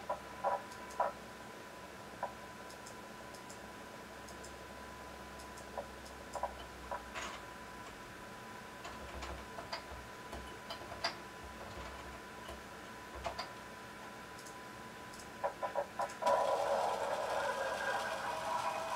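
Linear servo motor axis standing energised with a steady high whine, over scattered light clicks. Near the end the axis starts its sensorless hard-stop homing move, and the motor runs with a louder buzzing hum.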